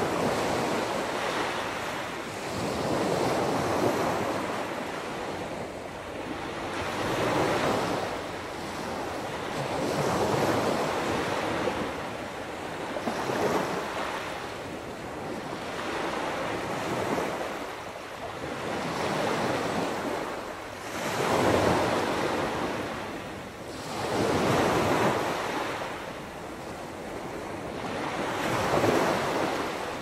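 Ocean surf breaking on a beach, waves washing in and ebbing in a steady rhythm about every three seconds.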